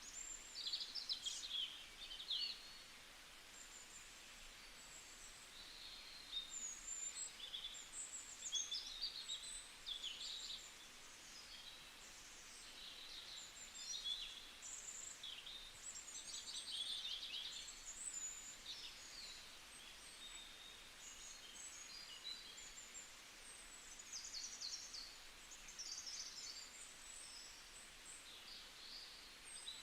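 Several small songbirds chirping and trilling, with short high rapid notes and twittering phrases coming every second or two over a faint hiss of outdoor background.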